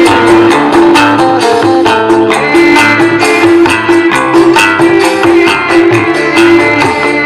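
Music with a steady beat, jingling percussion and plucked-string melody, played loud through a homemade miniature cardboard speaker box with a small 2-inch driver.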